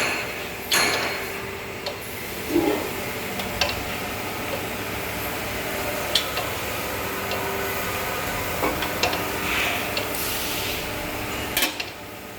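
Hydraulic surface grinder running with a steady hum, with several scattered sharp clicks and knocks.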